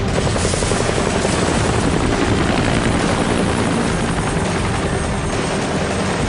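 Helicopters hovering low overhead, their rotors making a loud, steady chop.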